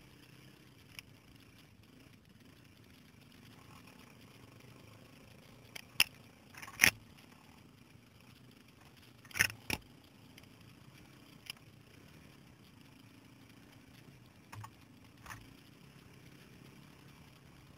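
Faint steady hum of a distant quad engine, broken by a few short sharp knocks and scrapes, the loudest about six, seven and nine and a half seconds in.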